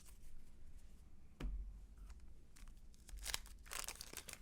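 Wax-paper wrapper of a 1990 Fleer baseball card pack being handled and torn open, with crinkling and tearing in short bursts and a sharp tap about a second and a half in.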